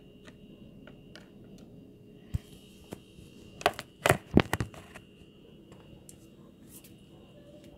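Handling noise from a phone being picked up and turned around: a cluster of sharp knocks and clicks about halfway through, several in quick succession.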